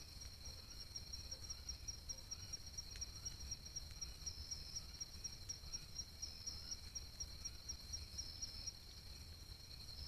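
Night insect chorus: a steady high-pitched trill, with a second insect pulsing rapidly at about four or five chirps a second until near the end. Fainter short calls repeat about once a second lower down.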